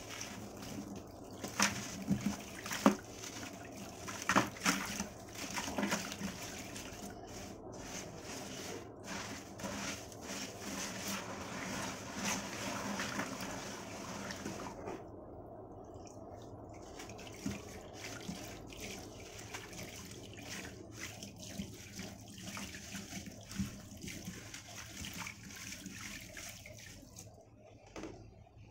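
Dry sand-cement balls crushed by hand over a tub of water, with gritty crunching and sand pouring into the water. After that comes splashing and sloshing as a hand works the muddy water. The loudest crunches come in a cluster in the first six seconds.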